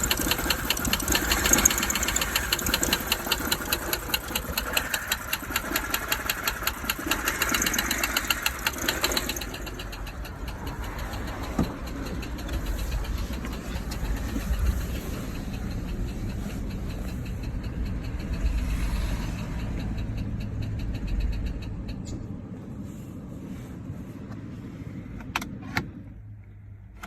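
BMW 525i E60's straight-six engine running with a rapid, rhythmic clatter that stops about nine seconds in, leaving a quieter, steady running that fades near the end, with a couple of sharp clicks. The rattle, together with unsteady idle speed, is a fault that appeared after a kickdown with the engine warm.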